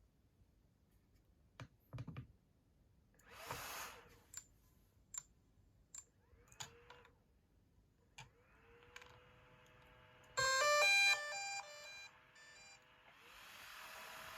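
DJI Air 2S drone powering on: a few clicks and taps, then a faint rising whir and, about ten seconds in, a loud electronic startup chime of stepped tones. Near the end a steady hiss swells in, the startup noise that the owner suspects is a broken internal fan.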